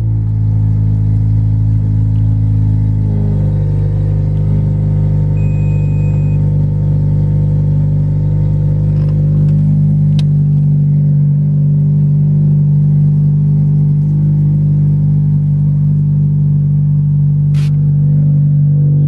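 2015 Honda Civic Si's 2.4-litre four-cylinder engine, just started, idling steadily on a newly installed DW65C fuel pump, heard from the cabin. A short beep about six seconds in and two brief clicks later sound over it.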